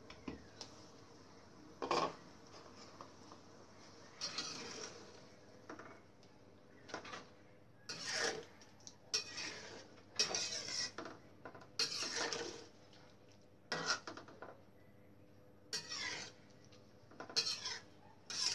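Metal spatula scraping and knocking against a wok while stirring a simmering chicken liver and gizzard stew, in about a dozen short, irregular strokes. It is the stirring stage as the sauce cooks down.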